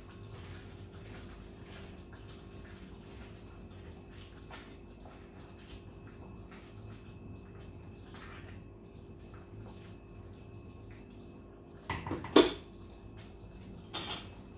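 A covered pan of mushroom julienne in cream simmering on the stove, with faint irregular bubbling pops over a steady hum. About twelve seconds in, a loud clank of cookware, followed by a shorter knock near the end.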